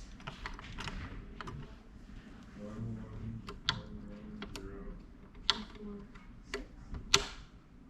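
Irregular clicks and small taps from adjusting and handling a Singer 401 sewing machine, not running; the sharpest click comes near the end.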